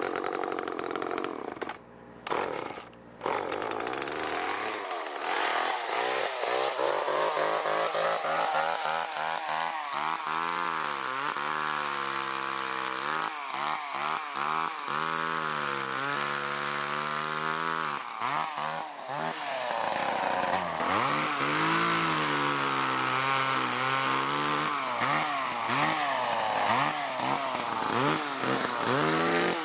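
Petrol chainsaw running, its engine pitch repeatedly rising as it is revved and sagging under load, as when cutting wood. In the first few seconds it runs in short bursts with brief breaks.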